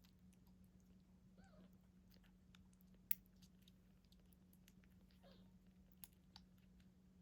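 Quiet wet clicking and smacking sounds with a sharp click about three seconds in. Two faint, short squeaky calls come, one near the start and one past the middle, from nine-day-old kittens nursing or being fed.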